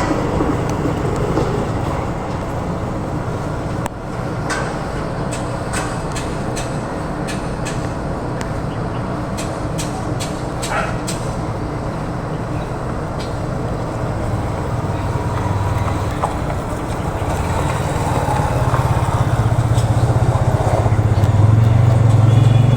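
Heavy engine running steadily as a low rumble, growing louder over the last few seconds as it comes closer, with scattered sharp clicks and knocks.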